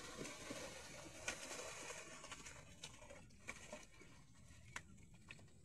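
Faint splashing and scattered soft knocks of a herd of water buffalo wading out of a river and climbing a muddy bank.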